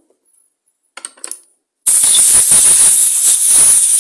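A loud, steady hissing jet, lasting about two and a half seconds, blowing dirt off a small-engine carburettor during cleaning. It follows a few light clicks of parts being handled.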